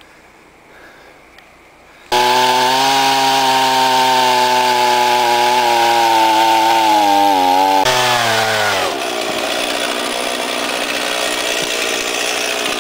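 A chainsaw starts abruptly about two seconds in and runs at high revs. About eight seconds in its pitch falls as it bites into wood, and it carries on with a rougher cutting sound.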